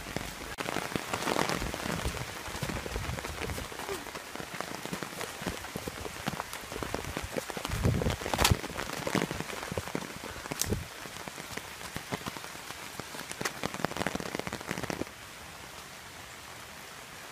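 Footsteps running through leaf litter and undergrowth, with twigs crackling and foliage rustling against the runners. About fifteen seconds in the crunching stops, leaving a quieter steady hiss.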